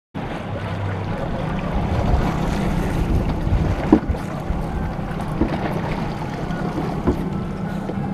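Boat engine running under way, with wind buffeting the microphone and water washing past the hull; a few sharp knocks stand out over it.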